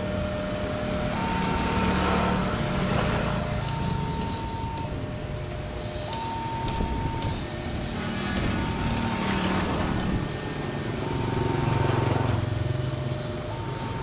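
Railway level-crossing warning signal sounding, alternating between a lower and a higher note, each held a little over a second, over a low engine rumble that swells and fades.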